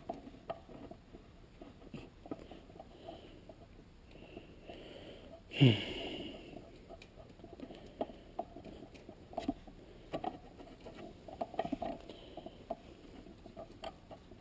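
Faint scattered clicks and taps of small metal parts being handled and threaded in: shift-stop screws going into an aftermarket short-throw shifter. About five and a half seconds in comes one brief, louder sound that falls in pitch.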